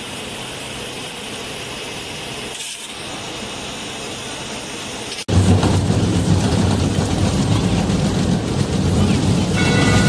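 Steady machine noise for about five seconds, then, after an abrupt cut, a single-shaft shredder's rotor tearing through old clothes: a loud, rough, low rumble that carries on.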